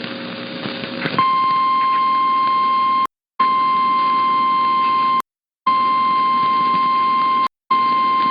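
Weather-radio warning alarm tone: a single steady, high-pitched beep that starts about a second in, after a low hiss. It sounds in blocks of about two seconds, broken twice by short silent gaps, and signals a new tornado warning about to be read.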